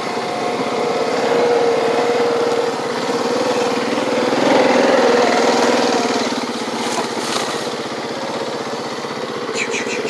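ATV (four-wheeler) engine running steadily as the quad rides along at low speed. The engine gets louder about four to five seconds in, then settles back.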